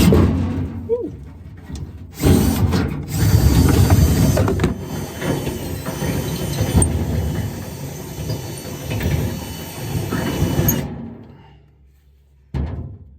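Power drill running in long spells as it bores out a bolt hole a little wider, stopping shortly before the end, followed by a short knock.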